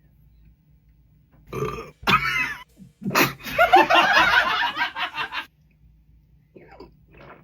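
A man imitating a toad's croak with his voice: two short croaks, then a longer wet, gurgling croak of about two seconds made with saliva in his throat, sounding like a burp.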